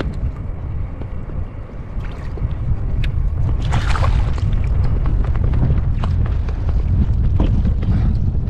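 Wind buffeting the microphone, a steady low rumble on an open kayak, with scattered small clicks and a short rush of noise about four seconds in.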